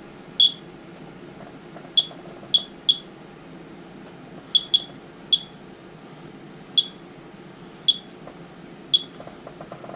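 Monitor 4 Geiger counter chirping at random, uneven intervals, about ten short high chirps in ten seconds, as it counts radiation from a rain sample. The count rate is a little over twice the background.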